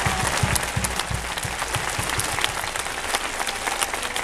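Crowd applauding, a dense, steady patter of clapping, with a few dull low thumps in the first second or so.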